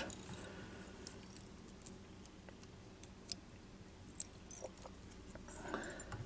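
Faint, scattered small ticks and rustles of fingers, thread and pheasant tail fibers being handled at a fly-tying vise while the fibers are tied off behind the bead.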